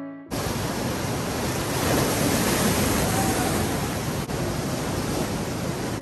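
Piano music cuts off, then a steady wash of ocean surf breaking on rocks, with a single brief click about four seconds in.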